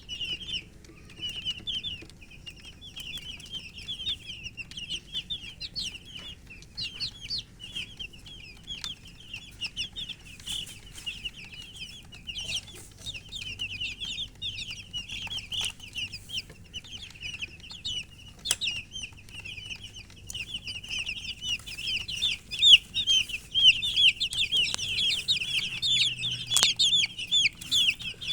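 A flock of baby chicks peeping, many short high chirps overlapping in a continuous chorus that grows louder and denser about two-thirds of the way through. The uploader puts the chirping down to thirst, the chicks wanting water.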